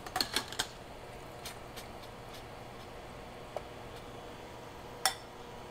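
A wire mesh strainer clicking lightly against a stainless steel pot while bean sprouts are blanched in boiling water and lifted out: a few quick clicks at the start, then single taps about three and a half and five seconds in, over a low steady hiss.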